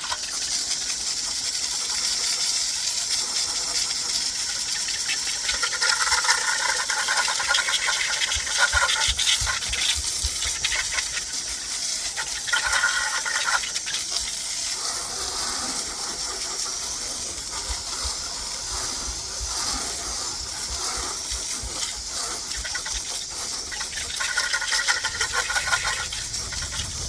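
Garden hose spraying water to rinse chrome wheel cleaner off a chrome wheel and tire. It is a steady hissing spray that starts abruptly, and its tone shifts as the stream moves over the surfaces.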